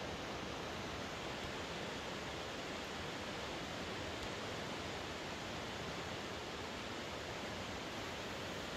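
Steady rushing of a nearby river, an even wash of water noise that does not change.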